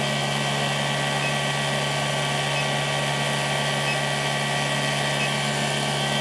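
Benchtop induction heater running as a steel bar in its work coil heats to red hot: a steady electrical hum with a thin high whine.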